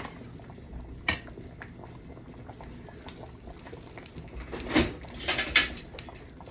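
Kitchen clatter: a sharp click near the start, another about a second in, then a cluster of knocks and rattles around five seconds in, like cupboard or drawer handling and utensils being picked up.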